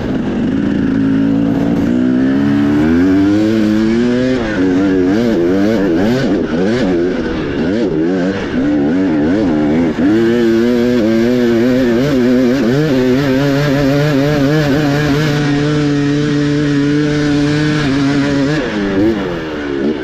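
Dirt bike engine running hard under riding load, its pitch rising and falling repeatedly with the throttle. It then holds a steady high pitch for several seconds and backs off near the end.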